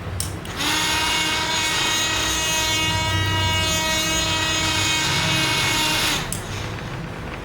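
Electric drill switched on, its motor running at a steady pitch for about five and a half seconds, then switched off.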